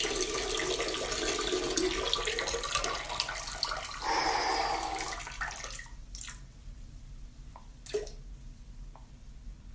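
Running water, like a tap, which cuts off about six seconds in, followed by a few faint clicks.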